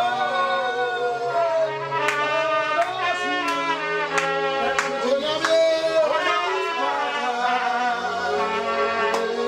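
Live worship music: a trumpet playing held melody notes over an electronic keyboard, with men singing along. Sharp hits land on the beat, about two a second through the middle.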